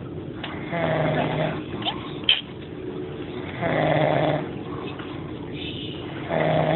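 Slow, rhythmic snoring: a pitched snore about every three seconds, three in all, the last starting near the end. A short click about two seconds in.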